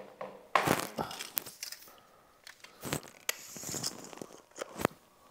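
Tools and motorcycle parts being handled as work starts on removing a foot peg: a scatter of sharp clicks and knocks with some rustling and crinkling in between.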